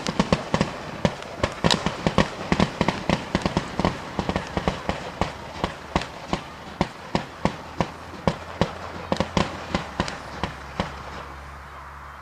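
Display fireworks firing a fanned barrage of comets: a rapid string of sharp reports, several a second at first, then more spaced out, stopping shortly before the end.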